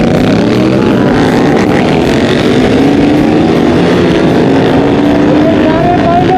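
Motorcycle engine running under way on the road, a steady loud drone with engine tones that drift slowly up and down in pitch, mixed with road and wind noise.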